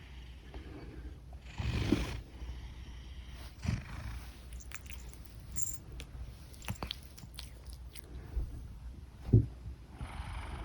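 A big domestic cat asleep: a steady low purring rumble with snoring breaths about two seconds in and again near the end, the one near the end the loudest, and a few faint clicks in between.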